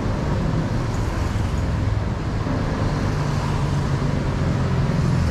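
Steady road traffic noise: a low rumble with a hiss over it.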